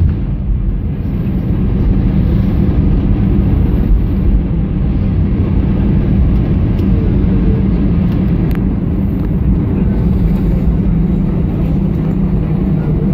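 Cabin noise inside an Airbus A320 rolling on the runway or taxiway just after landing: a steady low rumble of the engines and the rolling airframe.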